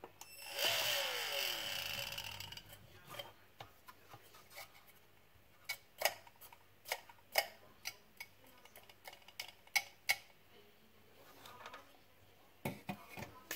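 Small parts from a cordless vacuum's motor and fan being handled. A brief whirr falling in pitch comes just under a second in, then a run of light clicks and taps.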